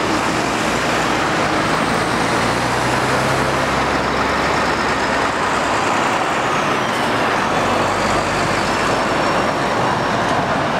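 Heavy lorries' diesel engines running as they pull round a roundabout, with tyre and traffic noise. An articulated curtainsider lorry passes close by near the end.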